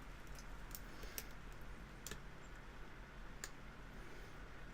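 Faint, scattered metallic clicks of lock picks working the pins of a challenge padlock, about five over a few seconds.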